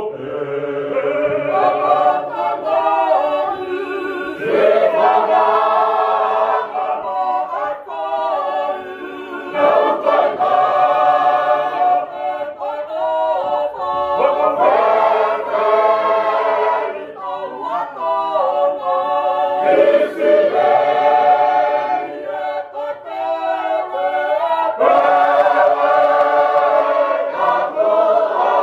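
Tongan church choir singing a hiva usu, a traditional unaccompanied hymn in several voice parts, with a lead melody, tenor and alto. The voices hold long chords in phrases of a few seconds each, with brief pauses for breath between them.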